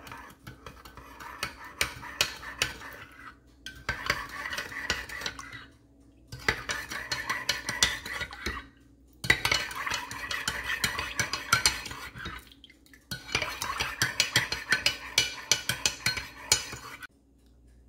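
A metal spoon stirring a thin sauce in a ceramic mug, clinking and scraping rapidly against the mug's sides in about five bouts with short pauses between.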